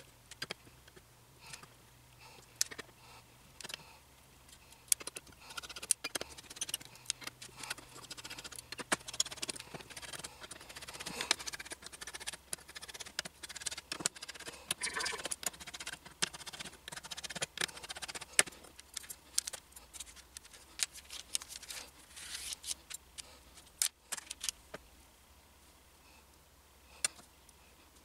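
Small metallic clicks, taps and rattles of a small screwdriver working the screws of a resin printer's FEP film frame, with loose screws and the metal frame being handled on a workbench mat. The clicks come thick and fast through the middle, mixed with some rustling, and grow sparse near the end.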